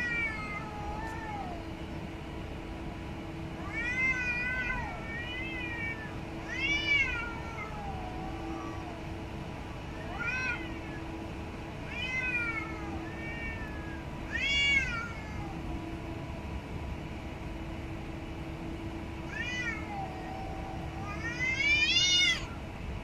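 Cats meowing at each other in a face-to-face standoff: about ten drawn-out calls that rise and fall in pitch, spaced by short pauses, the last one near the end longer and louder.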